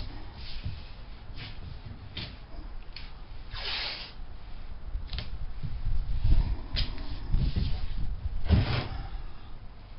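Hands-on work noise: a string of short rubbing and scraping sounds with light knocks, spaced irregularly, with a low rumble building in the second half.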